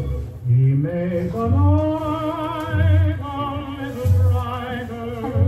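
An old song record playing on a turntable with a built-in speaker. A singer with heavy vibrato sings over an accompaniment that strikes a low bass note about every second and a quarter.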